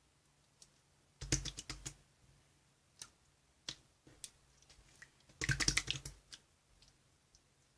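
Two short flurries of quick sharp clicks, about a second in and again past five seconds, with a few single clicks between them.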